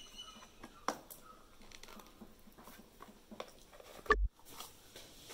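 Faint crinkling and scratching of paper and a thin cardboard box being handled and torn open, with light clicks and one loud thump about four seconds in.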